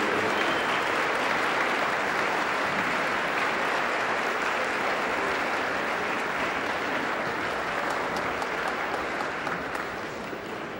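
Large audience applauding steadily after a speech, dying away near the end.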